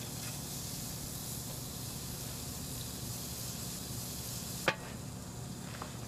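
Hamburger patties sizzling on a Weber gas grill, a steady hiss. About three-quarters through, the grill lid shuts with a short knock and the sizzle goes a little duller.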